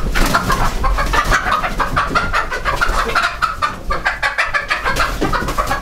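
Hens clucking without a break, a rapid run of short calls from several birds, as they are cornered and grabbed by hand.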